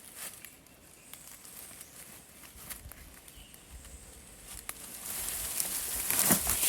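Dry leaf litter rustling and crunching, with scattered small crackles at first and louder rustling and a couple of heavier crunches over the last two seconds.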